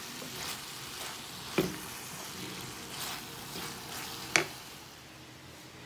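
Potatoes and green beans sizzling in a frying pan as they are stirred with a wooden spatula. Two sharp knocks of the spatula against the pan come about one and a half seconds in and about four seconds in, the second louder.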